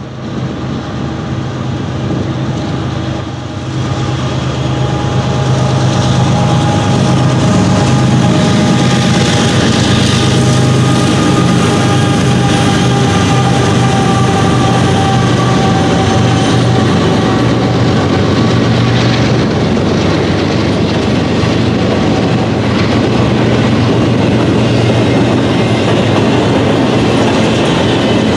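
Norfolk Southern diesel-electric locomotive approaching and passing with a steady low engine drone, growing louder over the first few seconds. Double-stack intermodal container cars then roll by with a continuous rumble and wheel clatter.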